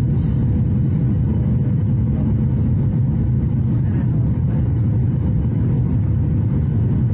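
Steady low rumble of an airliner's turbofan engines and rushing air, heard inside the passenger cabin during the descent on approach, with a faint steady hum above it.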